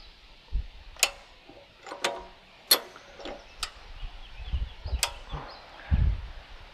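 Farm jack being pumped: a sharp metallic click roughly once a second as the jack ratchets up under a load, with a few dull knocks in between.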